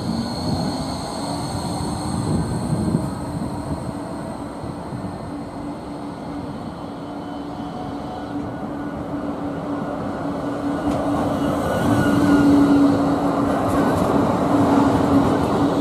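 Karlsruhe light-rail trams on street track. A Vossloh Citylink (NET 2012) tram moves away, then a Duewag GT8-100D/M2S Stadtbahn car approaches and passes close by. Its wheels rumble on the rails and a steady hum grows louder over the last few seconds.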